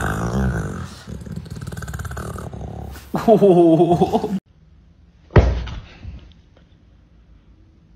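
A pit bull-type dog grumbling and snorting, then a loud, drawn-out wavering groan about three seconds in. A single thump follows at about five and a half seconds, then it goes quiet.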